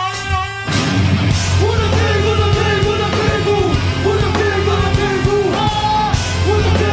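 Rock band playing live at full volume: a held note, then about a second in the full band kicks in with heavy bass, guitars and drums, and a shouted vocal over it.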